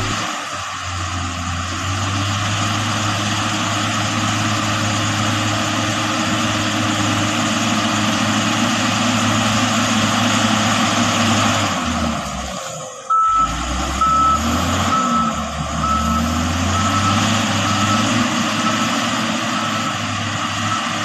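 Diesel engine of a LiuGong motor grader running steadily under load. After a brief sudden drop about two-thirds through, the engine runs on with the reversing alarm beeping about once a second as the grader backs up.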